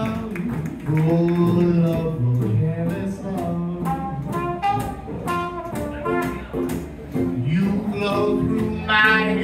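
Small traditional New Orleans jazz band playing live: rhythm guitar strumming in even strokes and upright bass walking underneath, with a lead melody line over the top.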